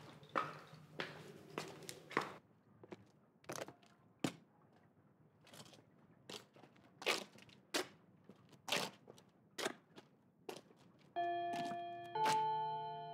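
Footsteps at a steady walking pace, a little over one step a second. Near the end soft music with held notes comes in.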